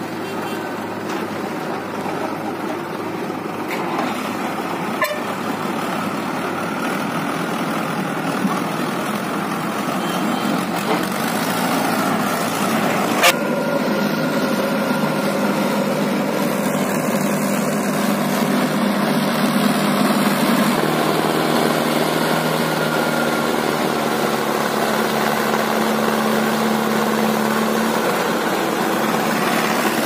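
Four-cylinder diesel engine of a Mahindra Arjun 555 DI tractor running under load with a trolley of earth, alongside a working JCB backhoe loader, with a steadier engine note in the second half. A sharp knock about five seconds in and a louder one about thirteen seconds in.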